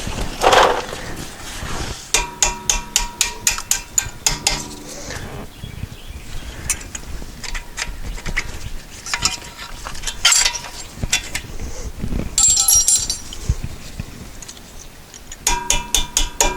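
Repeated metal-on-metal strikes and clinks with a ringing tone after them, coming in quick runs of several a second, while working loose a wheel stuck on the hub.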